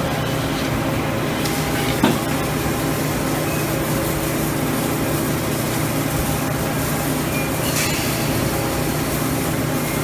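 Steady industrial machinery noise with a low hum, with a sharp metallic click about two seconds in and a fainter one near the end.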